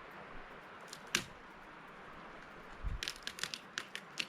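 Dry sticks and twigs crackling and snapping while being gathered for firewood: one sharp snap about a second in, then a quick run of crackles near the end.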